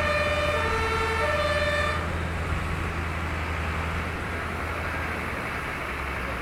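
Fire engine's two-tone siren alternating between a low and a high note about every two-thirds of a second, cutting off about two seconds in. A steady low engine rumble with a broad hiss carries on after it.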